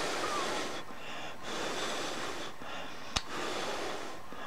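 A man breathing audibly through his nose, about three breaths in and out, with one sharp click a little over three seconds in.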